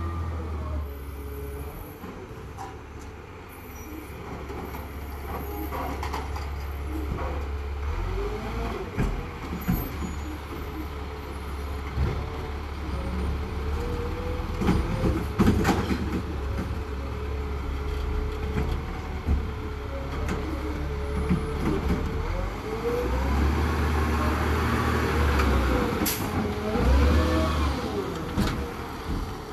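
Garbage truck working its route: its diesel engine runs low and steady under rising and falling hydraulic whines and squeals, with several clanks and bangs, the loudest about halfway through and again near the end.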